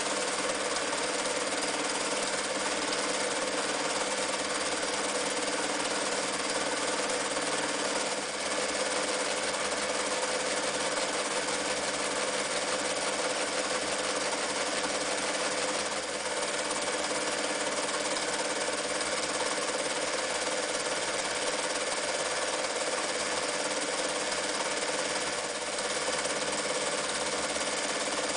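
Janome New Home 552 electric sewing machine running steadily at speed, its motor humming and needle bar stitching decorative zigzag and wave stitches through fabric. The sound dips briefly about three times.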